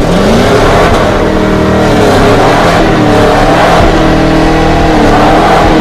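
Chevrolet Camaro ZL1's supercharged 6.2-litre LT4 V8 revving loudly, as the rear tyres spin in a burnout. The pitch climbs over the first half-second, then is held high with small rises and dips.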